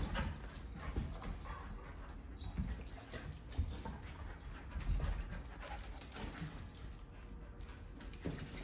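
A wire fox terrier and another dog play-wrestling: irregular scuffles, bumps and paw thumps, with a few small dog noises.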